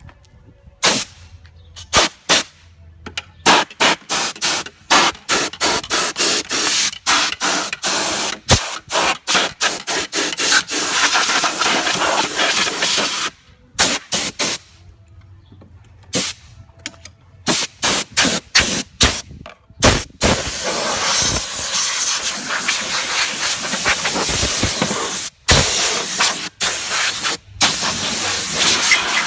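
A jet of water from a garden-hose cleaning wand sprays under a lawn mower deck. It comes in many quick, short blasts for the first ten seconds or so, then in longer runs of several seconds each.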